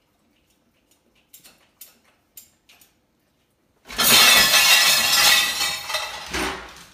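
A few light clinks of dishes in a dishwasher's lower rack, then, about four seconds in, a sudden loud crash and clatter of dishes and cutlery spilling from the rack onto a tile floor, lasting about two and a half seconds.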